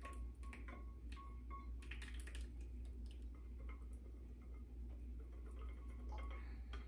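A wire whisk clicking and scraping against a stainless steel saucepan as thick pumpkin batter is scraped out of the pan into a bowl, with irregular light taps over a low steady hum.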